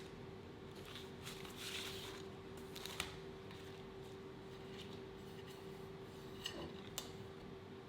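Faint handling noises: a soft rustle, then a few light, sharp clicks spaced a few seconds apart, over a steady low hum.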